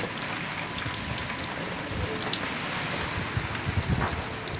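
Heavy wind-driven rain falling steadily: a dense, even hiss with scattered sharp drop hits and a few low gusty swells.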